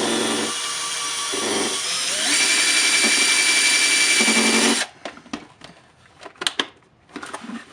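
Cordless drill running, its bit boring into the plastic heat-staked posts that hold the two halves of a toy boat hull together. It runs for about five seconds, gets louder a little over two seconds in, then stops suddenly, followed by a few light knocks of the plastic being handled.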